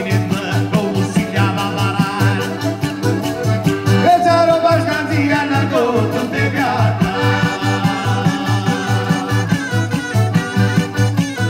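Live southern Italian folk dance music: accordion and acoustic guitar over a fast, even beat on a jingled frame drum (tammorra). A melody line slides up and down in pitch in the middle.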